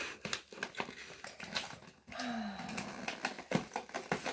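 Plastic LOL Surprise toy packaging being pried and twisted open by hand, with repeated sharp clicks and crinkling, and a rustling stretch in the middle. About two seconds in a short falling grunt of effort is heard.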